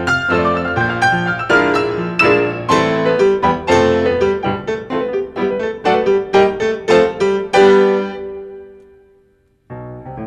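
Two grand pianos played by four players. A quick passage of struck notes ends on a held chord, which dies away over about two seconds; after a brief gap, a softer passage begins near the end.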